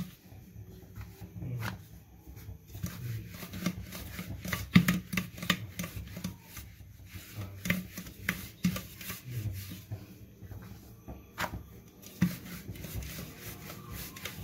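Wooden rolling pin rolling out bread dough on a floured stone countertop: soft rubbing and low thuds, with irregular light knocks of the wood against the counter.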